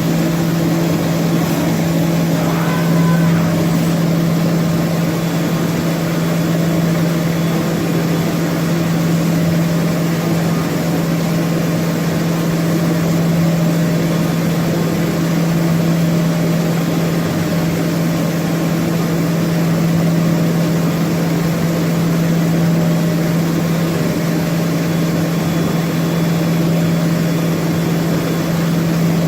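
HOMAG BOF 41/K CNC machining center running with a steady, unchanging hum on one strong low tone.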